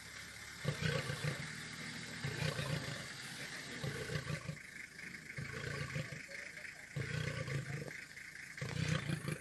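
Male East African lion roaring: a run of short, deep roars repeating about once a second.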